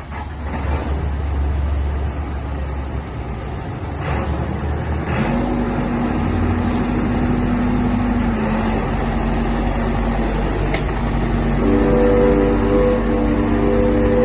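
Caterpillar 416C backhoe loader's diesel engine running steadily. About five seconds in a steady whine comes in, and near the end a higher set of steady tones joins it.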